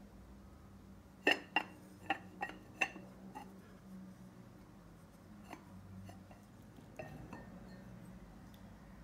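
Glazed ceramic lidded dish clinking: a quick run of five sharp, ringing clinks a little over a second in, then a few softer clinks later as the lid is handled and lifted off.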